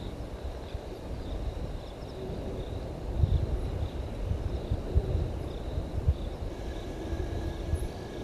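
Outdoor ambience at a waterhole: uneven low rumbling, as of wind on the microphone, with a faint high chirp repeating about twice a second.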